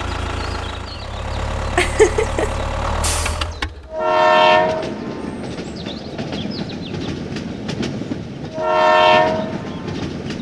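A low motor hum with a few clicks, then a train horn sounds twice, about a second each time, over rumbling running noise.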